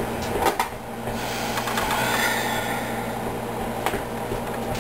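Microwave oven running with a steady hum, with a couple of light clicks or knocks.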